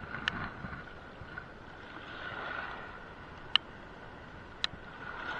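Choppy water lapping and splashing against a small boat's hull, with wind, and three short sharp clicks.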